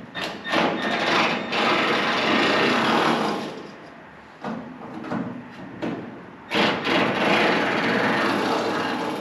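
Power tool running in two bursts of a couple of seconds each, spinning off the fasteners of the fender molding clips, with short clicks and knocks between the bursts.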